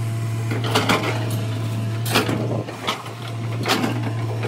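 Komatsu PC200 crawler excavator's diesel engine running steadily under load, with several sharp scrapes and clunks about a second apart as the bucket digs into the soil.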